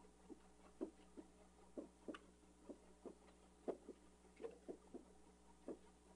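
Faint, irregular light taps, about fifteen of them, from a stylus touching the writing surface as words are handwritten on screen.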